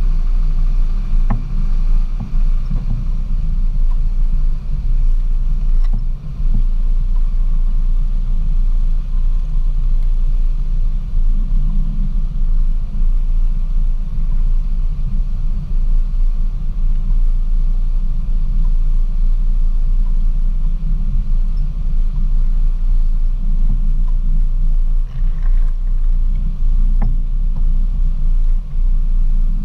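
Jeep Wrangler YJ driving slowly along a muddy off-road trail: a steady low rumble of engine and drivetrain, heard from the hood.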